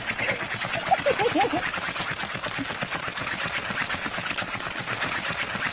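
Rapid, continuous clatter of laptop keyboard keys being struck many times a second, like very fast typing.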